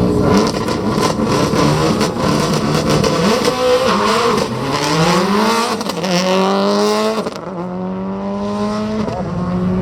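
1999 Prodrive Subaru Impreza World Rally Car's turbocharged flat-four accelerating hard. The engine note climbs, drops sharply at two quick upshifts in the second half, then holds almost steady.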